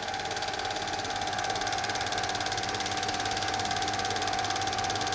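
Film projector running: a fast, even clatter from the film-advance mechanism over a constant motor whine.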